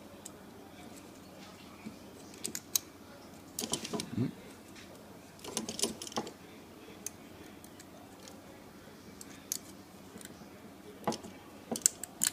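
Small metal clicks and light scraping from a Master Lock 175 combination lock as its number wheels are turned and a thin aluminium can shim is worked down beside them, coming in scattered clusters of ticks.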